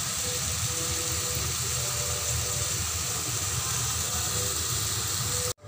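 Chicken pieces and tomatoes sizzling in a metal pan: a steady hiss with a low rumble underneath.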